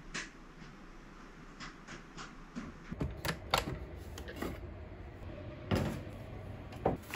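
Clicks and knocks of a rice cooker's lid being opened and its inner pot lifted out and set down in a stainless steel sink, starting about three seconds in, with a loud knock near the end.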